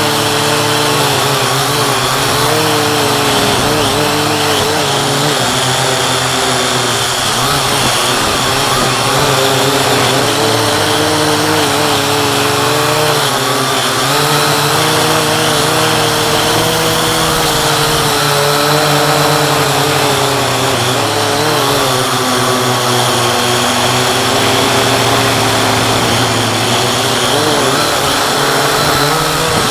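Syma X8C quadcopter's four motors and propellers whining in flight, heard from a camera on the drone; the pitch wavers up and down as the throttle changes.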